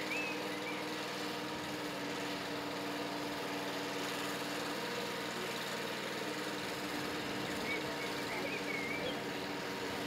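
Tracked spider lift's motor running steadily with an even hum. A few faint bird chirps come through about eight seconds in.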